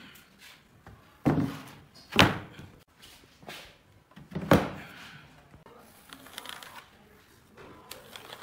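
Wooden knocks as a pine table frame is set down and shifted on a pine board: three sharp thunks, the first about a second in and the last about four and a half seconds in, then faint handling noises.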